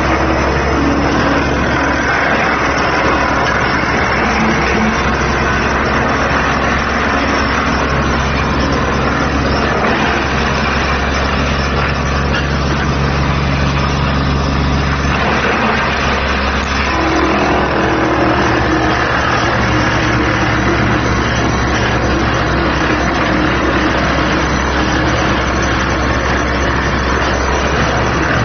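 Diesel-engined mobile wood chipper shredder running steadily, a loud continuous engine drone with mechanical noise from the chipping machinery; its pitch pattern shifts about halfway through.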